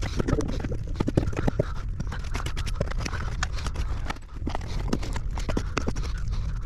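Hand tools scraping and knocking irregularly in the dirt around a buried clay sewer pipe, over a steady low rumble.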